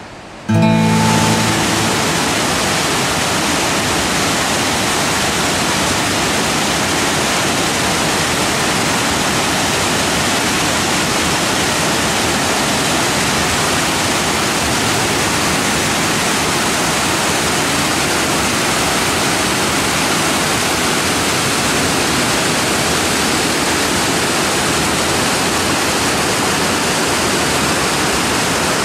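Creek whitewater cascading over rock: a steady, loud rush of water, after the last moment of acoustic guitar music in the first second.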